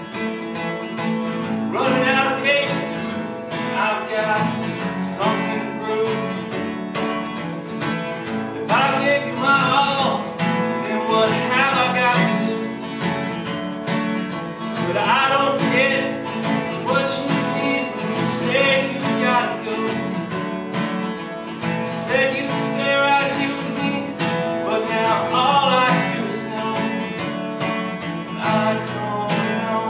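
Two acoustic guitars played together in a song, with a voice singing in places.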